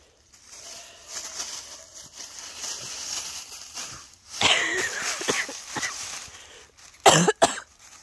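Dry fallen leaves rustling as a dog roots and tugs at a stick among them, then two sharp coughs close together near the end, the loudest sounds here.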